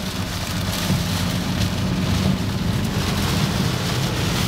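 Wind-driven heavy rain beating on a car's windshield and body, heard from inside the cabin as a steady, loud wash of noise with a low rumble underneath.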